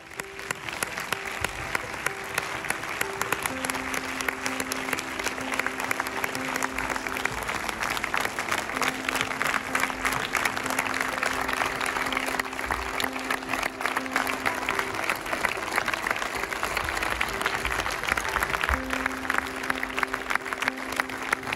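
Audience applauding steadily, a dense patter of many hands, over background music with long held notes.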